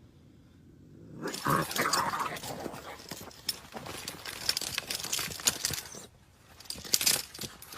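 A cat crying out amid scuffling and rustling, starting about a second in. There is a louder burst near the end.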